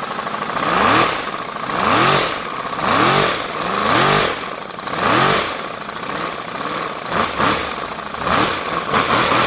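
3D-printed V4 compressed-air engine running with nothing in its mufflers, its speed swelling and falling back about once a second, then in quicker, shorter surges near the end.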